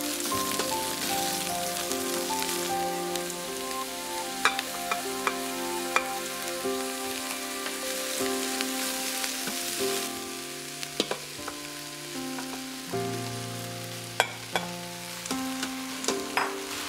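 Sliced onions sizzling as they fry in oil in the stainless steel inner pot of an Instant Pot, stirred with a silicone spatula that knocks sharply against the pot a few times. Soft background music with a stepping melody plays under it.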